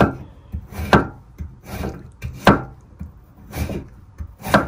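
Kitchen knife chopping vegetables on a cutting board: slow, separate strokes about once a second.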